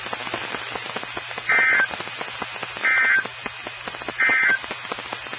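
Weather radio broadcast sending three short bursts of SAME digital data tones, about a second and a half apart, over radio static and a low hum. Short bursts like these coming right at the end of a warning are the end-of-message code of an alert.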